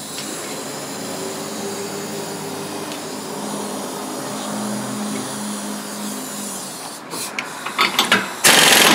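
Steady background hum, then a few clicks and knocks, and about eight and a half seconds in a pneumatic impact wrench starts hammering loudly, driving the forcing screw of an OTC heavy-duty brake drum puller to push a rusted-on brake rotor off its hub.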